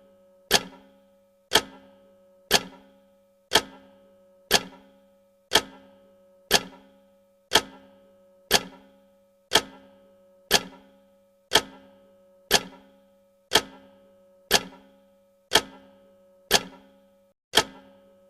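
Countdown timer's clock-tick sound effect: a sharp tick once every second, each dying away quickly, with a faint steady hum between the ticks.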